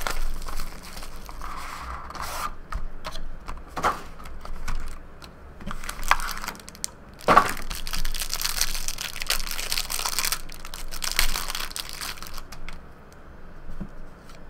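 Plastic wrapping on a box and pack of trading cards crinkling and tearing as it is ripped open by hand. The crackling is heaviest for a few seconds just past the middle, with a few sharper snaps along the way.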